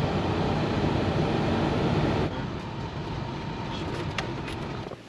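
Steady driving noise of a vehicle on the road, a dense rumble of tyres and engine that drops to a lower level about two seconds in.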